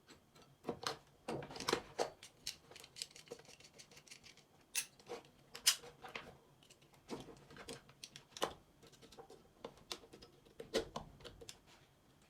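Irregular clicks, snaps and scrapes of small hard objects being handled at close range, several a second, with louder clicks scattered through.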